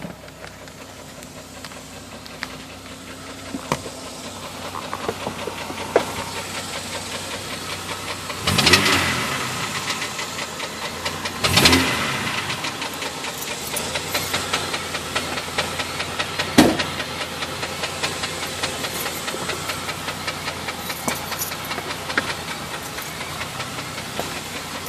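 Jeep Grand Cherokee engine running with a fast, steady knocking, revved up briefly twice, with one sharp louder bang later on. The owner hears the knock from the front, mid-to-upper part of the engine rather than at the flexplate.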